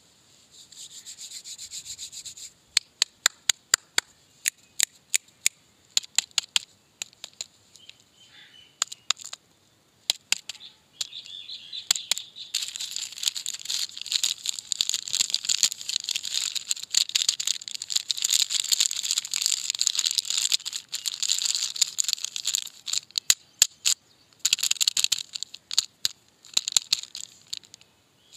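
Close-up handling of a plastic snack wrapper. First a run of sharp, separate taps and clicks, then from about twelve seconds in the wrapper of a chocolate-coated cake crinkles steadily and loudly as it is squeezed and turned in the hands.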